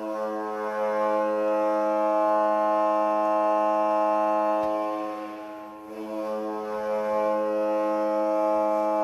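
Ice hockey arena goal horn sounding in long, steady blasts: one note held for about five seconds, a short drop-off, then a second long blast.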